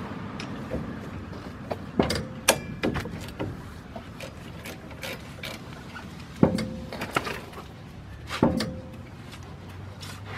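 Irregular metal clicks and clinks of a hand wrench on a front brake caliper as the bottom caliper bolt is loosened and taken out, a few sharper clinks ringing briefly.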